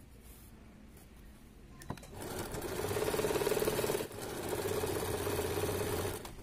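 Sewing machine stitching fabric in two runs: it starts about two seconds in, stops briefly near the middle, then runs again and stops just before the end.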